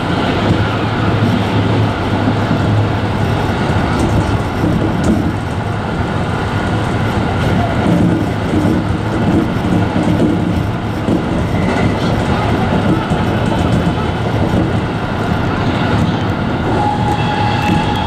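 Electric commuter train running on the rails, heard from beside the driver's cab: a steady rumble of wheels and running gear with a low hum and occasional clicks over the track. Near the end a steady high tone comes in.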